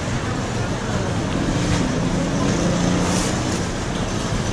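Steady rumble of street traffic, a low engine hum under a constant wash of noise.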